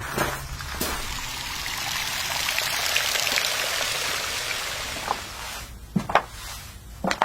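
A steady rushing hiss that lasts about five seconds and then fades. A few sharp clicks or knocks follow near the end.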